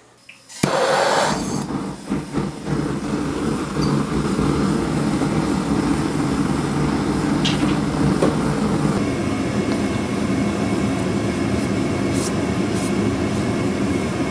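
Gas forge burner running: a loud, steady rush that starts suddenly about half a second in.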